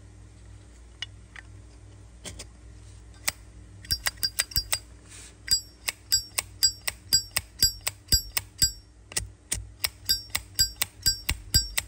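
Metal Zippo lighter lid flipped open and snapped shut over and over: a rapid run of sharp metallic clicks with a bright ring, about three a second, starting about four seconds in after a few single clicks.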